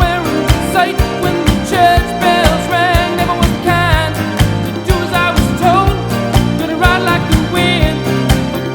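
A song with a singing voice over a steady beat and instruments.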